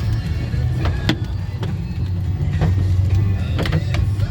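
Golf-ball-sized hailstones pounding a car: a dense low rumble with sharp, irregular cracks of single stones striking the body and glass, heard from inside the cabin.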